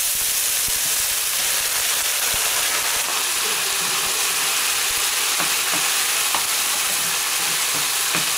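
Diced onion, pickled gherkin and beetroot sizzling in hot oil in a frying pan, a steady hiss, as they are stirred with a wooden spoon.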